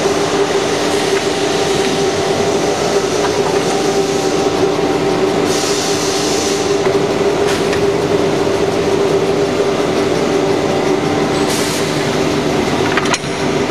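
CNC chair-leg machine with vacuum and pneumatic clamps running with a steady hum. A burst of compressed-air hiss comes about five and a half seconds in, and short sharp air hisses and clicks from the air-cylinder clamps come a few times later on.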